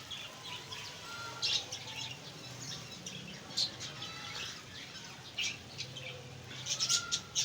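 Small caged birds chirping in short, high, scattered calls, with a quick run of chirps near the end, over a faint low hum.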